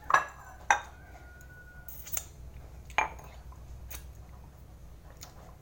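Cutlery clinking against a plate while eating: two sharp clinks at the start and another about three seconds in, with lighter taps between.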